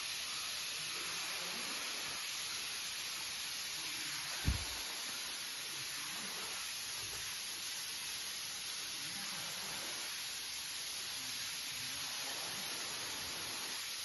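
Steady rush of falling water from a waterfall, with one brief low thump about four and a half seconds in.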